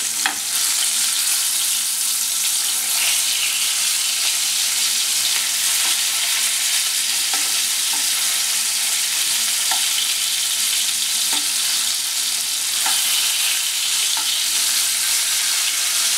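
Marinated tuna pieces shallow-frying in hot oil in a pan, a steady sizzle, with a metal spatula clicking and scraping against the pan a few times as the pieces are turned.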